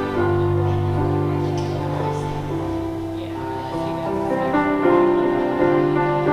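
Slow instrumental church music on a keyboard instrument, held chords changing every second or so: offertory music.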